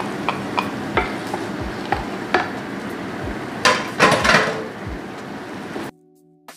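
Ground chicken sizzling in a frying pan while it is stirred together with the just-added sauce, a utensil clicking and scraping against the pan, loudest a little past halfway. The frying cuts off suddenly near the end.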